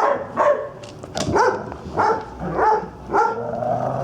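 A dog barking repeatedly: about six short, pitched barks, roughly every half second.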